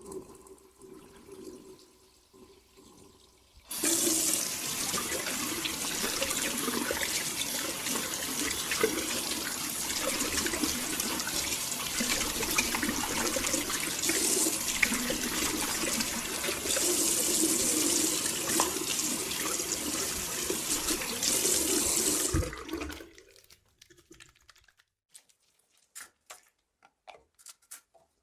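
Water running from a tap into a sink while hands are washed under the stream. The water comes on suddenly about four seconds in, runs steadily, and is shut off about 23 seconds in, leaving a few faint drips.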